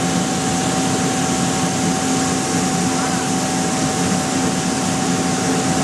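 Steel ball skew rolling mill production line running: a steady machine drone with a constant thin whine over a low hum.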